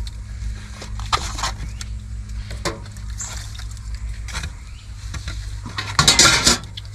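Serving utensils clinking and scraping against food pans and bowls while food is dished out, with a short louder scrape about six seconds in, over a steady low hum.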